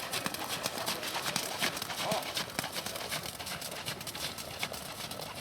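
Hoofbeats of a ridden Thoroughbred horse on the arena footing: a quick, uneven run of hoof strikes.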